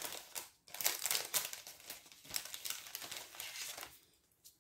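Paper rustling and crinkling as a card and its envelope are handled and a piece is taken out, in quick irregular crackles that die away near the end.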